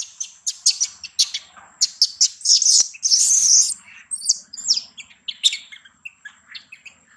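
Infant macaque crying: a quick run of short, high-pitched squeals, rising to one longer scream about three seconds in, then shorter squeals that thin out.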